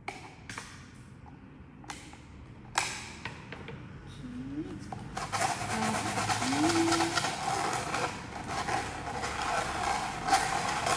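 Sandpaper rubbing back and forth on the cut rim of a thin plastic bottle, a fast, steady scratchy scraping that starts about five seconds in. Before that, a few clicks and crackles of the thin plastic being handled.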